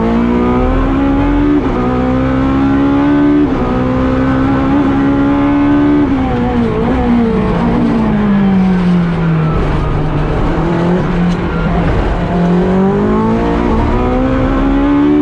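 Ferrari 458 GT3 race car's V8 engine at speed: it revs up through two quick upshifts in the first few seconds, holds high revs, then its pitch falls steadily as it slows, idles low for a few seconds, and revs up again near the end.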